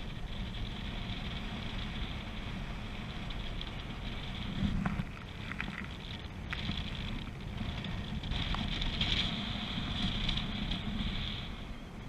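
Airflow rushing over the microphone of an action camera carried by a paraglider pilot in flight: a steady rumbling hiss that swells briefly about halfway through and is a little louder in the second half.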